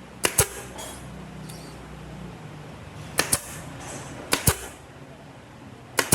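Four sharp double clacks, each a pair of hard knocks in quick succession: one near the start, one about three seconds in, one just after four seconds and one at the very end. A faint low hum stops a little over two seconds in.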